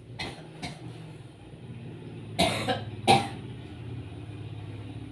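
A person coughing twice, two short harsh coughs under a second apart near the middle, after a couple of faint clicks.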